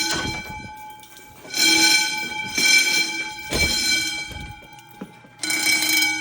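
10-inch Wheelock fire alarm bells ringing in the drill's evacuation pattern: three bursts about a second apart, a pause, then the next round starting near the end.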